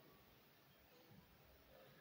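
Near silence: faint room tone in a pause between spoken sentences.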